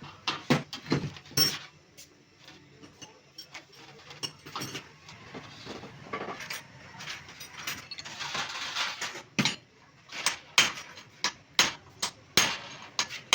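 Metal tools and parts clinking and knocking at irregular intervals on a workbench during work on a diesel injection pump, with a short scrape or hiss about eight seconds in.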